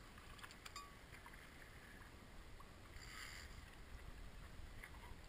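Faint, steady wind and sea noise aboard a fishing boat, with a low rumble, a few light clicks and a brief hiss about three seconds in.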